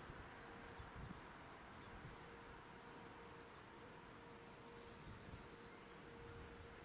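Near silence: faint outdoor background hiss with a few faint high chirps and a short high trill about five seconds in.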